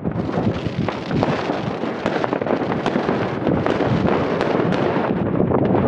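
Fireworks going off nonstop: a dense, continuous crackle of many overlapping bangs and pops.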